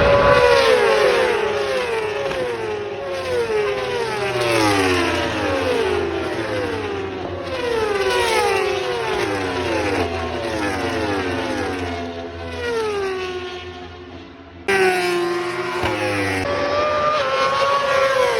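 Racing motorcycles running hard on track, one after another, the engine pitch falling over and over as several overlapping bikes go by. The sound drops away and then jumps back up abruptly about fifteen seconds in.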